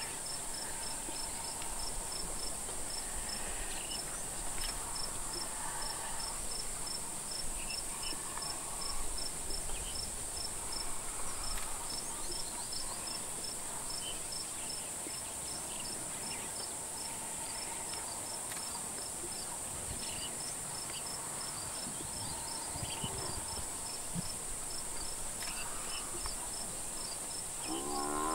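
Insects droning steadily, high-pitched, with a regular chirp about three or four times a second. Near the end a Cape buffalo's loud, wavering bellow begins.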